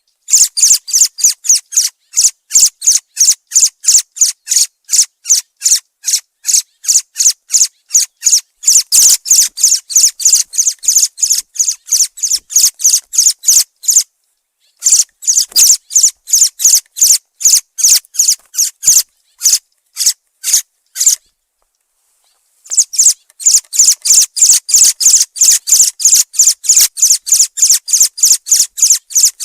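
Thrush giving a high, sharp call over and over, about three notes a second, in long runs broken by two short pauses.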